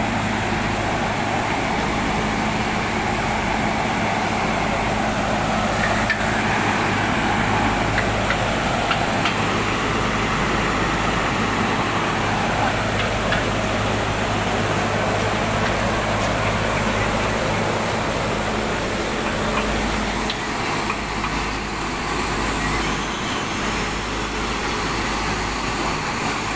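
A Nilgiri Mountain Railway locomotive taking on water: a steady rushing noise over a constant low rumble.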